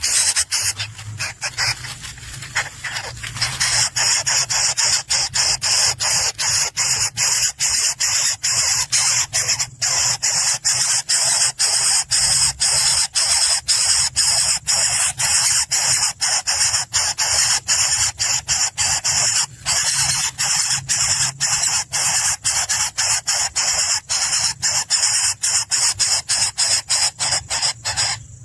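Nestlings begging in the nest: a continuous high-pitched rasping chorus, pulsing about three times a second.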